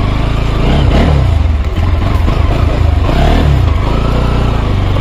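Motorcycle engine running at low speed, its pitch rising and falling a couple of times as the throttle is worked.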